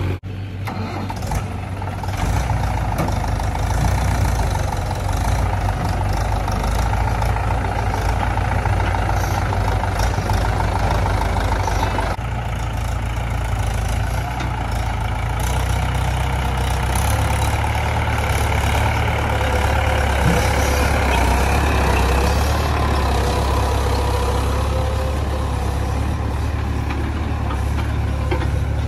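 Diesel engine of earthmoving machinery running steadily with a deep drone.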